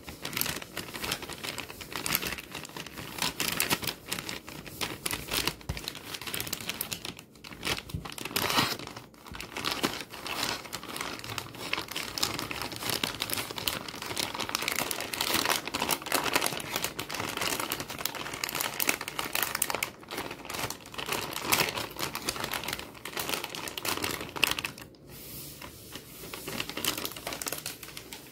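Hands crinkling and rubbing the soft plastic wrapper of a pack of Huggies baby wet wipes, with a damp wipe rubbed over it: a dense, continuous crackle with a few short pauses. It turns quieter near the end as a wipe is rubbed on a wooden tabletop.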